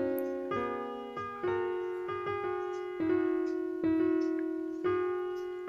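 Background piano music: slow notes struck about once a second, each fading away after it sounds.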